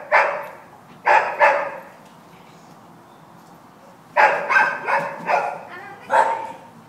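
Dog barking in short bursts: two barks about a second in, then a quick run of four and one more near the end, each trailing off with echo in a large hall.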